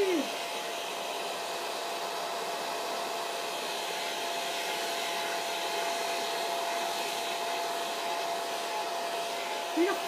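Hair dryer running steadily: an even rush of blowing air with a thin steady whine.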